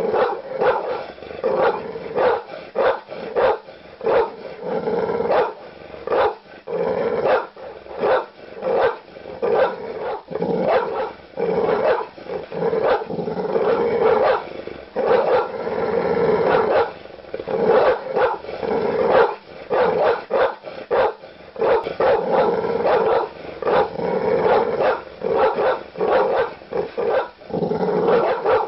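Large dog barking aggressively: deep, loud barks in quick runs, several a second, broken by brief pauses.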